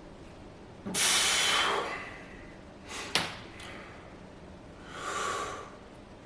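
Forceful, breathy exhalations of a lifter straining through barbell curls: a long loud one about a second in and a softer one near the end, with a sharp click in between.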